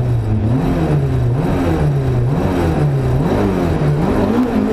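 Rally car engine held on the throttle at the start line, its revs blipped up and falling back about once a second while it waits to launch.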